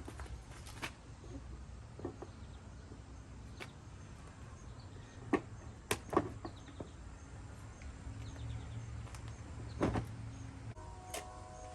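Scattered light knocks and clicks of Greenstalk planter tiers being handled and set onto a wheeled mover base, over a steady low rumble.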